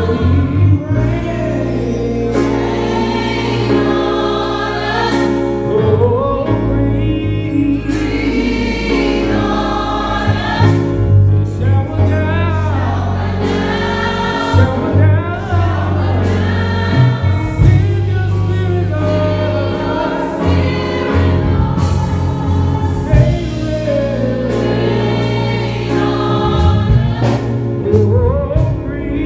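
Gospel choir with a male lead singer performing live, backed by a band with guitar and keyboard and a strong, steady bass underneath.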